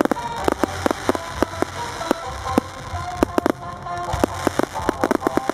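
Fireworks going off in quick, irregular succession: sharp bangs and crackles from bursting shells, several a second, with music playing underneath.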